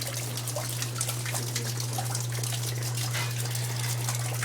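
Leaking water pouring and splashing steadily as the apartment floods, with many small drips and splashes and a steady low hum beneath it.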